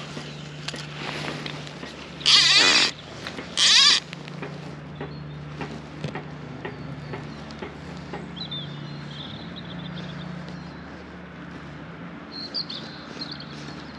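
Sheep bleating twice, loud and wavering, the second call shorter, about a second and a half apart.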